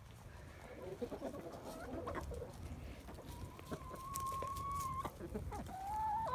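Chickens clucking in short scattered calls, then one long, steady, drawn-out call held for nearly two seconds, starting about three seconds in.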